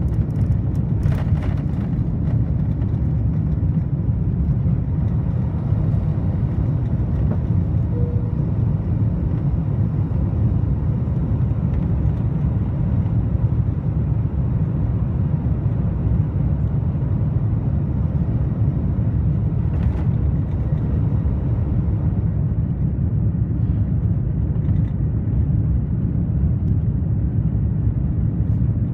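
Airbus A330-200 cabin noise from a seat behind the wing during liftoff and the initial climb: a loud, steady low rumble of the twin engines at takeoff thrust and the rushing air.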